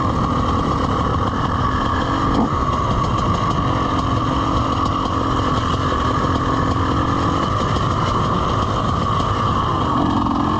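Two-stroke dirt bike engine, the rider's TM EN300 TPI, running steadily at a constant loud level while riding on a trail.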